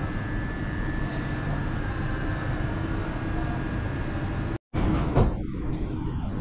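Steady mechanical drone with a low rumble and a few faint steady tones, cut off suddenly about four and a half seconds in. It is followed by a different, more open background hum with a single sharp knock.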